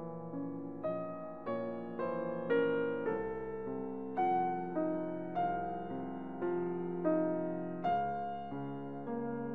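Background piano music: a slow melody of single struck notes, a new one about every two-thirds of a second, each ringing and fading.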